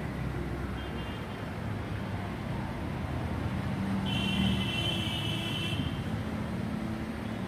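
Road traffic rumbling steadily in the street, with a high-pitched tone that lasts about two seconds, starting around four seconds in.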